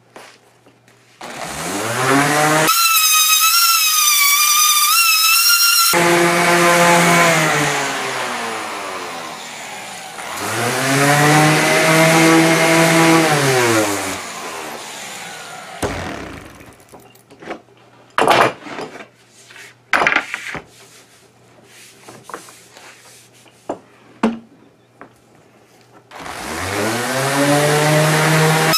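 Electric random orbit sander running on maple-and-cherry boards. It spins up, sands, is switched off and winds down, then does the same again. A few light knocks follow, and it starts up once more near the end.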